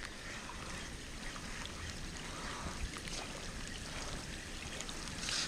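Steady rain falling, an even hiss, with a few faint clicks.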